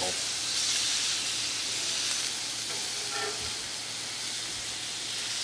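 Birria quesatacos frying on a Blackstone flat-top griddle: a steady sizzling hiss of tortillas and cheese cooking in fat and consommé.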